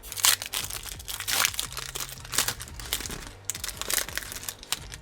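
Plastic wrapper of a Panini Donruss football card pack being torn open and crinkled, a run of irregular crackles and rustles.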